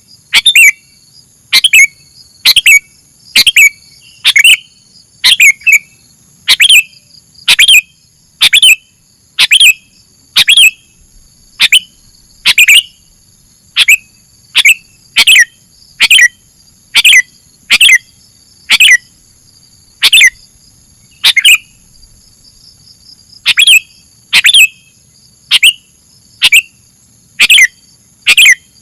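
Sooty-headed bulbul (kutilang) calling over and over: short, sharp notes that fall in pitch, about one a second, with a brief pause about 22 seconds in. A steady faint high-pitched hum runs underneath.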